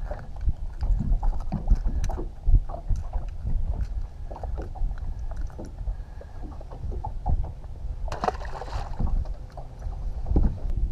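Water lapping and knocking against a bass boat's hull under a low wind rumble, with small clicks and knocks of pliers, lure and rod being handled on the deck. A brief louder noisy burst comes about eight seconds in.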